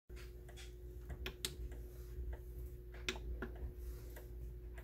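Light, irregularly spaced mechanical clicks over a faint steady hum from a battery-operated Sylvester and Tweety novelty clock. The clock is being set off by hand and its mechanism is running.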